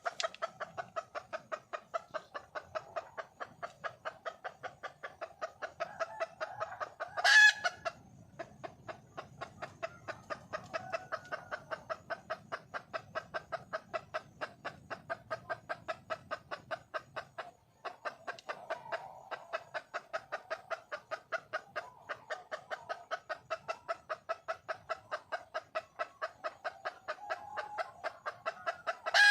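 Red junglefowl hen calling for a male: a long, steady run of rapid clucks, about three a second. A single loud, sharp sound cuts in about seven seconds in and again at the very end.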